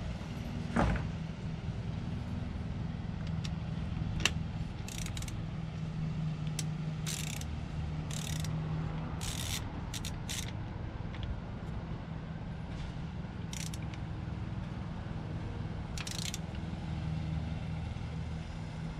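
A torque wrench ratcheting in short bursts as spark plugs are tightened, with a single knock about a second in, over a steady low hum.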